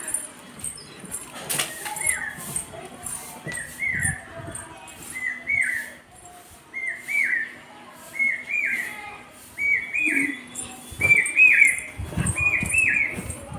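A small animal's high, squeaky double cries, each note rising then dropping, repeated about once a second and coming faster near the end, with a few bumps of the phone being handled.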